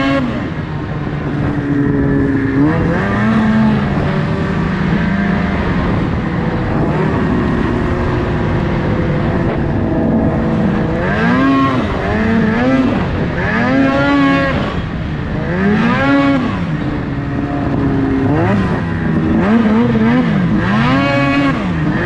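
Ski-Doo race snowmobile's 600 cc two-stroke engine revving up and down. It holds a fairly even pitch for the first half, then rises and falls about once a second in the second half as the throttle is blipped.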